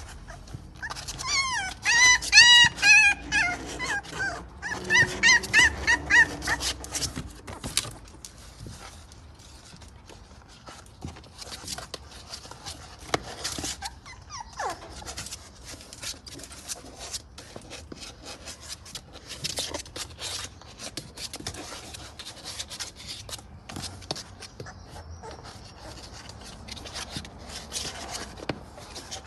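Golden retriever puppies whining and yelping in quick high-pitched cries for the first several seconds, then quieter scratching and scrabbling of their claws on a cardboard box.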